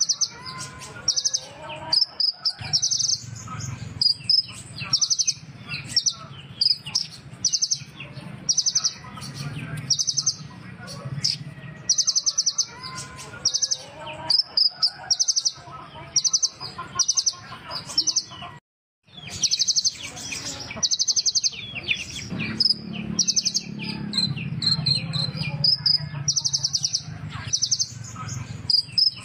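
Kolibri ninja sunbird singing: short, high-pitched, rapid trilled phrases repeated about once a second, with a brief break about 19 seconds in.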